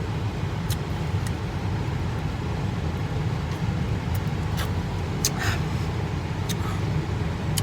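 Steady low rumble of a running car heard from inside the cabin, with a handful of short, faint clicks and gulps from someone drinking a soda quickly.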